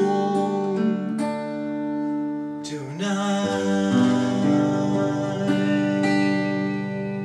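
Acoustic guitar fingerpicked through a D chord that moves to G about three seconds in. The G chord is plucked and left to ring, closing the song.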